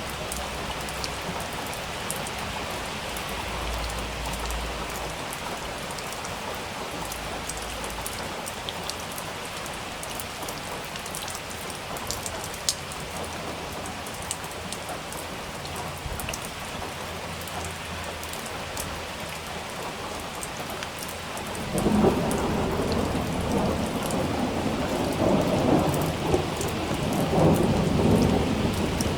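Steady rain pattering, with scattered drops ticking. About three quarters of the way through, a rolling thunder rumble breaks in suddenly and keeps swelling and rumbling.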